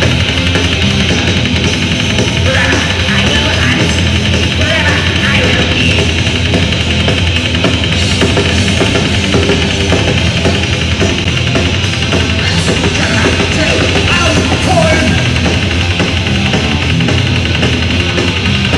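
Loud, dense black metal music with drums, continuous and unbroken.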